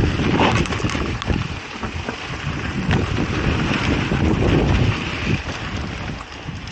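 Wind buffeting an action-camera microphone as a mountain bike rides a dirt trail, with a steady low rumble from the tyres and irregular knocks and rattles from the bike.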